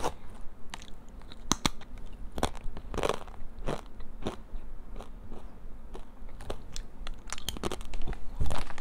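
Crisp purple sweet potato chips being bitten and chewed: a run of sharp, irregular crunches, with a louder crackle near the end.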